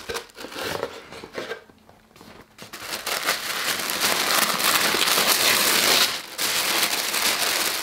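A cardboard box lid lifted open with light rustles, then tissue paper crinkling steadily as it is unfolded and pulled back, from about three seconds in.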